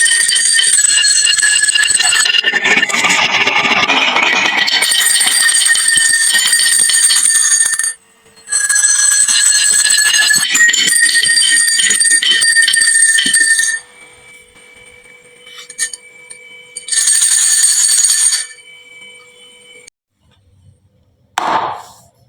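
Many marbles rolling and clattering down a marble run, with a ringing tone. The clatter breaks off briefly about 8 s in and stops near the middle, then comes back in one shorter burst and a brief one near the end.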